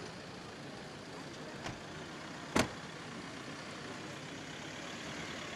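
Steady outdoor background noise of traffic and people at a busy railway station forecourt, with one sharp knock about two and a half seconds in and a fainter one shortly before it.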